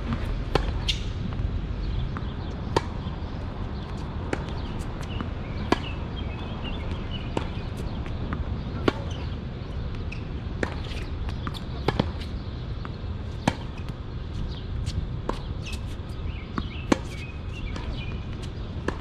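Tennis balls being hit with racquets in a steady rally, a sharp pop roughly every second and a half.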